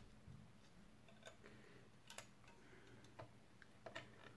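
Near silence with a scatter of faint, irregular small clicks as a spring-loaded anti-backlash nut is worked onto the end of a steel lead screw by hand.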